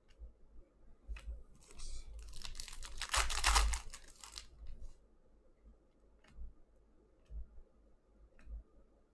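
Foil wrapper of a Panini Prizm basketball card pack being torn open and crinkled, loudest about three seconds in. Before and after it, a few soft clicks of trading cards being handled and flicked through.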